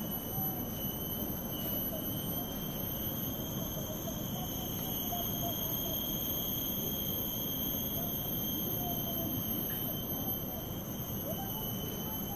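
A steady, high-pitched drone of tropical forest insects, one unbroken shrill tone with higher overtones, over a low rumble.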